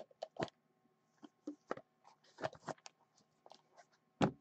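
Hands handling and opening cardboard sports-card packaging and a card in a clear holder: scattered small clicks, taps and rustles, with one sharper click about four seconds in.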